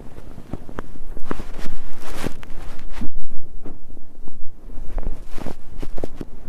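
Futon bedding rustling as someone fidgets and shifts under the covers: irregular swishes and rubs of fabric, with louder sweeps a little after two seconds in and again past five seconds.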